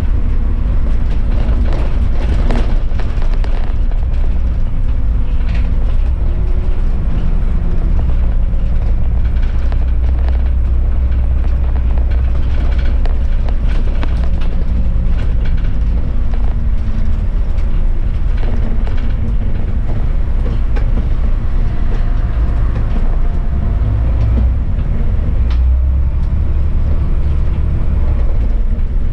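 City bus driving on a snow-packed road: a heavy, steady low rumble of engine and tyres, with the engine note drifting up and down as it changes speed, and occasional clicks and rattles.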